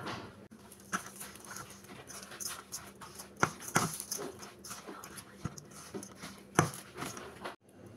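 Grated cassava and sugar being mixed by hand in a bowl: irregular squishing, scraping and knocking, a few sharper knocks among them, over a steady low hum.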